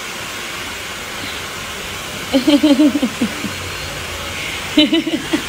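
A steady rushing hiss of blowing air, with a person's voice sounding briefly twice, about halfway through and near the end.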